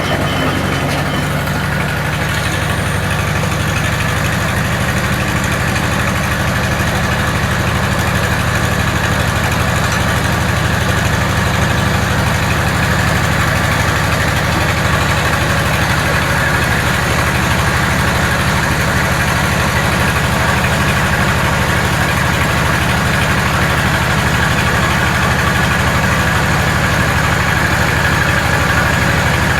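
Engine powering a Corley sawmill, running loud and steady at a constant speed.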